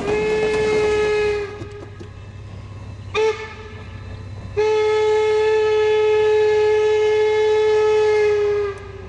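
Steam locomotive whistle of Norfolk & Western 4-8-0 No. 475 blowing a long blast, a short toot, then a long held blast of about four seconds, over the low rumble of the running train.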